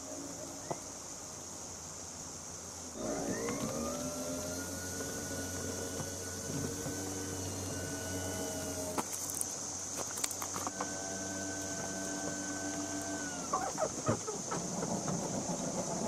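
Electric caravan motor mover driving the trailer's wheels: its motors whine up in pitch about three seconds in and run steadily for about six seconds. They stop, then run again for about three seconds, followed by a few clicks and knocks.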